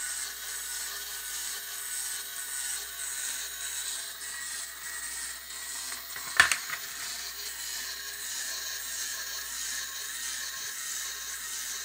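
Small electric motor and plastic gearbox of a Tamiya model rowing boat kit running with a steady whir, with one sharp click about six and a half seconds in.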